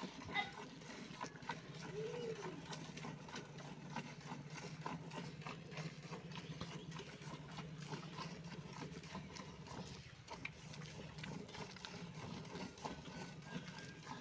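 Hand milking a cow: jets of milk squirting from the teats into a steel bucket part full of milk, a quick series of soft splashy squirts. A low steady hum runs underneath.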